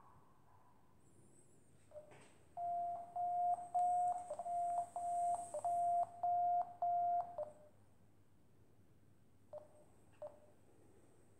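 Smartphone variometer app beeping: a run of about nine quick beeps at one mid pitch, creeping slightly higher, lasting about five seconds, the climb tone of a free-flight variometer. A few single short chirps sound before and after the run.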